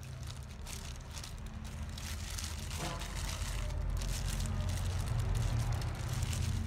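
Plastic glove crinkling with wet squelching as marinade is rubbed into raw lizardfish fillets by hand, in irregular bursts of handling noise. A steady low hum runs underneath.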